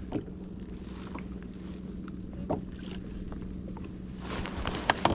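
Small knocks and handling noises on a fishing kayak over a steady low hum of wind and water. The noise and clicking grow louder near the end.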